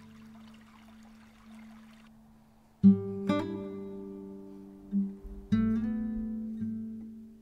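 Acoustic guitar background music: held notes, with strummed chords striking near three seconds and again about five and a half seconds in.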